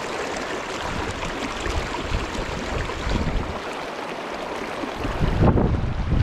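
Shallow river water rushing over rocks close to the microphone, a steady hiss. About five seconds in, wind starts buffeting the microphone with a low rumble.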